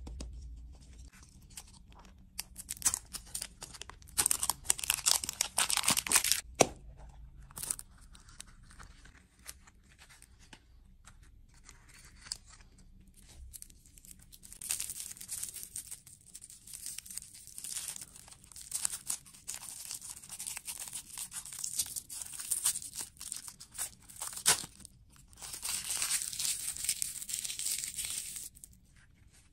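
Plastic lollipop wrappers crinkling and tearing as they are unwrapped by hand, in bursts of crackly rustling with short pauses. The loudest stretch is about three to six seconds in, then the crinkling runs almost unbroken from about the middle to near the end.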